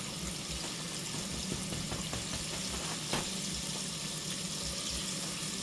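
Chicken wings frying in hot oil: a steady sizzle with small crackles, and a single click about three seconds in.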